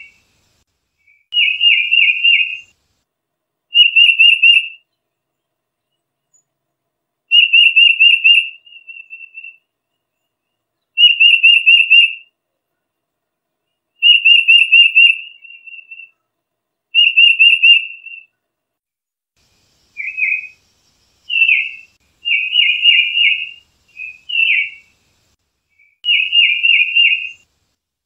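Tufted titmouse whistling short phrases of rapidly repeated clear notes, about one phrase every two to three seconds with silence between. In the last third the phrases turn shorter and choppier, with quick downslurred notes.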